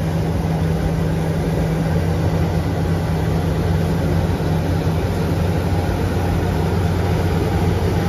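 Tractor engine running steadily with an even low drone, heard from inside the cab while pulling a grain cart across the field.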